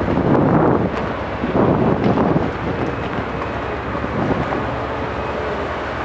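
Liebherr R974C high-reach demolition excavator running steadily, its diesel engine and hydraulics droning with a faint held whine, while its demolition tool breaks concrete high on the building. Two louder spells of breaking and falling concrete come at the start and about two seconds in.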